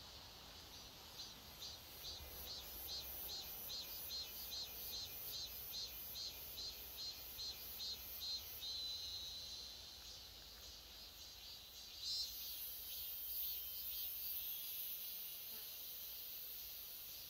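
Insects chirping in a steady rhythm, about three chirps a second, giving way about twelve seconds in to a continuous high buzz.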